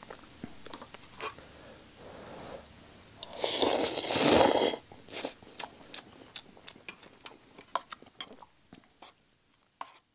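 A person slurping noodles loudly for about a second and a half near the middle, then chewing, with many small sharp clicks that die away near the end.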